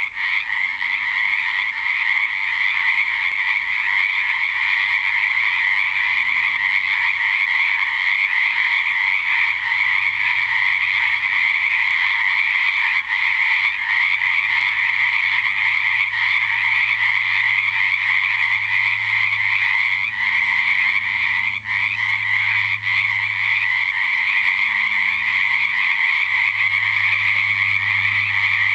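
Dense chorus of many frogs croaking together at a pond at night, a steady, unbroken wall of high-pitched calls.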